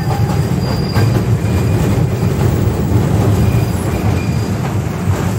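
Miniature toy train running along its track, heard from aboard: a steady low rumble of the wheels and carriage, with a faint high squeal coming and going.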